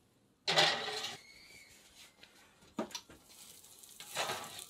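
Cast iron pan going onto the metal rack of a wall oven: a short metallic clatter and scrape about half a second in that leaves a faint ring, then a single sharp knock a couple of seconds later and a soft rush of noise near the end.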